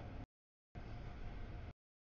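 Low rumble and hiss of a double-stack freight train rolling through a grade crossing, with a faint steady whine. The sound drops out to dead silence twice: a short snatch at the start, then about a second of train noise that cuts off abruptly near the end, the sign of a live stream losing audio.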